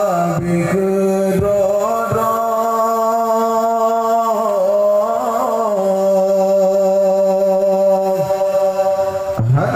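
Solo male voice singing a qasidah into a handheld microphone, in long drawn-out notes with a wavering ornament about five seconds in.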